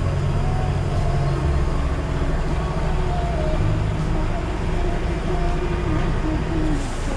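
DAF XF truck's diesel engine idling steadily, with background music playing over it.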